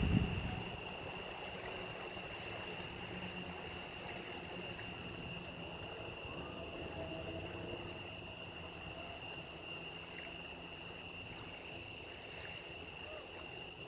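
Night insects, crickets or similar, trilling steadily on one continuous high note, with a faint low rumble underneath.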